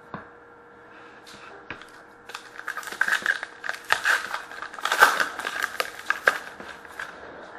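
Plastic trading card pack wrapper crinkling and crackling as it is handled and torn open, in a dense run of sharp crackles that peaks in the middle and tails off near the end.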